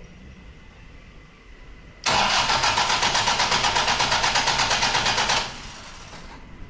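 Starter motor cranking a rebuilt Toyota 1KD-FTV four-cylinder diesel for about three seconds, starting about two seconds in, with a rapid even pulse of compression strokes, then stopping abruptly. The engine does not fire: the EF5 fuse is out and this is a dry crank to build oil pressure before the first start.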